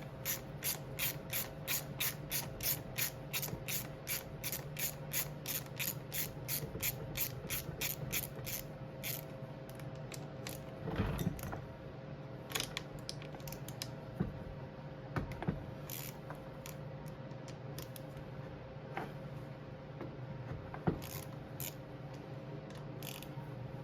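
Socket ratchet clicking in a steady run, about four clicks a second for roughly nine seconds, as the bolts holding a 1995 KX80's intake boot are backed out. Then scattered single clicks and light knocks of tools and metal parts.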